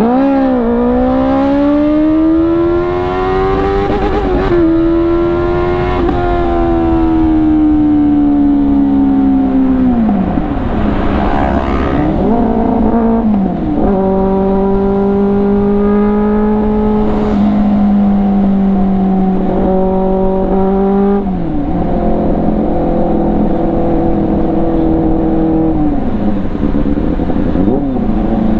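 Benelli 600i's inline-four engine under way, its pitch climbing through the revs and dropping sharply at several gear changes, then holding steady for long stretches.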